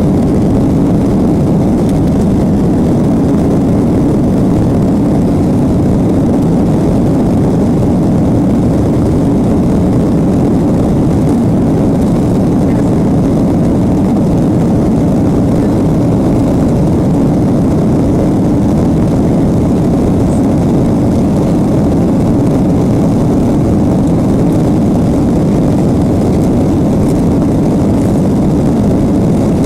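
Boeing 737 jet engines running steadily with rushing air, heard from inside the passenger cabin as a loud, even, low-pitched noise that does not change.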